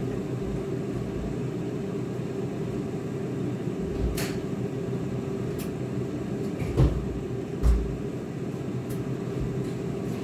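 Steady hum of an air fryer's fan running. A few knocks are heard, with two louder thumps about a second apart in the second half.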